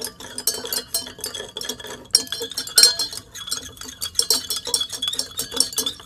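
Stirrers clinking rapidly and irregularly against glass beakers of water, as substances are stirred in to dissolve.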